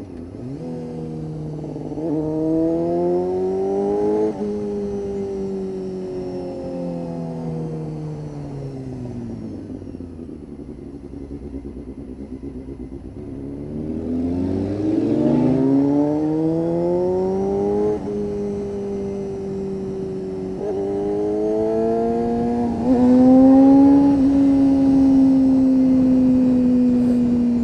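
1992 Honda CBR250RR's inline-four engine through an aftermarket Musarri exhaust, ridden in traffic. It revs up through quick gear changes in the first few seconds, then rolls off and slows. From about halfway through it pulls away again, shifts up twice and holds a steady high pitch for the last few seconds.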